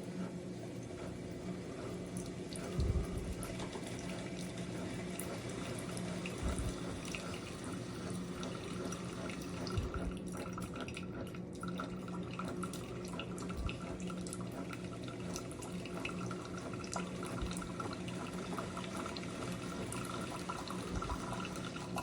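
SIFENE single-serve coffee brewer brewing: a steady pump hum under water trickling and dripping, with a few soft knocks.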